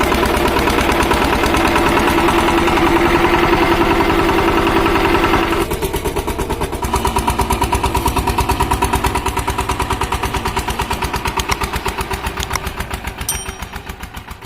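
Single-cylinder diesel engine of a VST Shakti power tiller running steadily. About six seconds in its note drops and settles into a slower, plainly pulsing beat.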